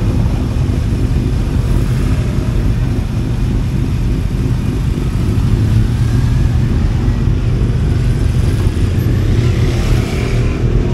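Motorcycle engines: a close, steady low idle rumble while other motorcycles ride past, with one rising in pitch as it pulls away near the end.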